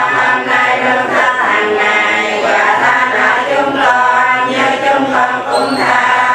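A choir singing, several voices together.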